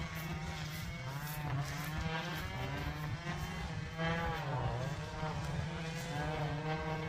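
Quadcopter drone's motors and propellers whining, the pitch gliding up and down continually as it manoeuvres, over a steady low hum.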